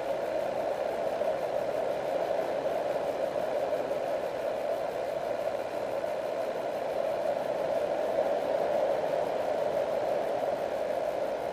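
Steady rushing hiss on the FPV plane's radio audio feed, loudest in the lower middle range, with no motor tone; the EasyStar's motor is drawing only about one amp as it glides down.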